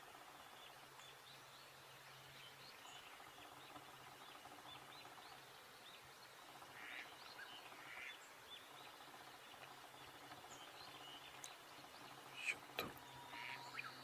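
Faint, quiet outdoor ambience with scattered short bird chirps and a few brief calls, and one sharp click near the end.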